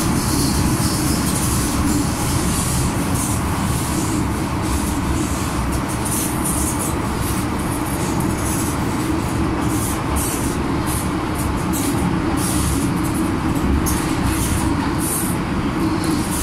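MTR M-Train electric multiple unit running at speed through a tunnel, heard from inside the car by the doors: a steady, loud rumble of wheels and running gear with a flickering hiss.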